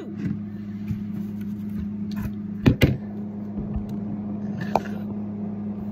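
A steady low electrical-sounding hum, with a few scattered clicks and two sharp knocks in quick succession about three seconds in.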